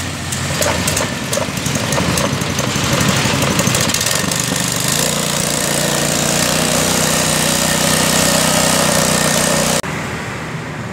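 Small 3.5 hp four-stroke petrol engine (Matsumoto MGX 100) of an MGP-40B 1.5-inch portable water pump running steadily. It cuts off abruptly near the end, leaving quieter street noise.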